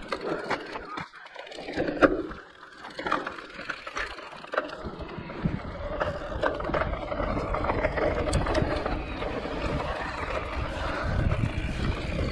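E-mountain bike riding down a rough trail: tyres rolling and crunching over the ground, with knocks and rattles over bumps and one sharp knock about two seconds in. From about five seconds in the rumble grows denser and steadier as the bike picks up speed.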